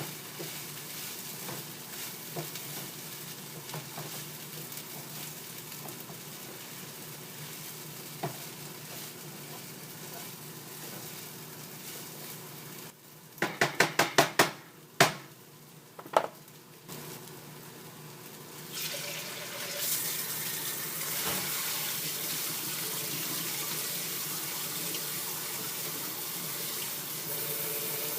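Food sizzling in a skillet with small crackles, then a quick run of about seven short sharp sounds and two single clicks, like kitchen appliance handling. About two-thirds of the way in, a steady rush of water from a running tap starts and continues.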